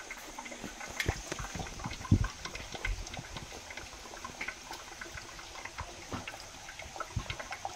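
Hot-spring water trickling and splashing as it runs out of a rock crevice over stones, with a few soft thumps about one, two and three seconds in.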